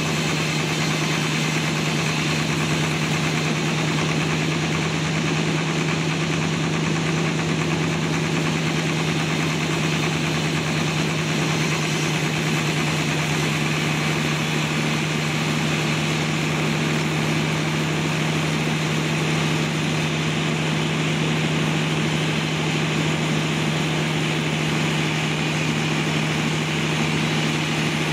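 Sawmill engine running steadily, a constant drone with a strong low hum that does not change.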